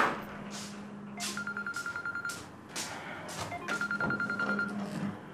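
Mobile phone ringing: a rapid electronic trill over a low hum, in short bursts, once just after a second in and again near four seconds. Short swishing sounds fall between the rings.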